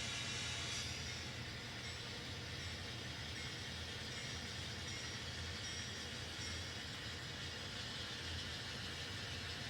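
N scale model trains running steadily on the layout track: a continuous rolling and small-motor hum with a faint high whine, a little brighter for the first second, then steady.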